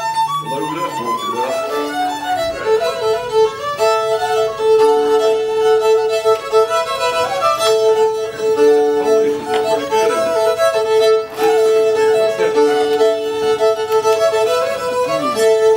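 A solo fiddle playing a tune, bowing a quick melody over a steady drone note held on a neighbouring string.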